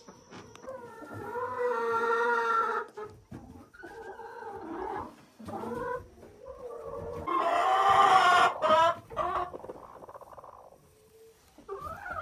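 Backyard hens clucking and calling, with several drawn-out squawks; the loudest comes about eight seconds in.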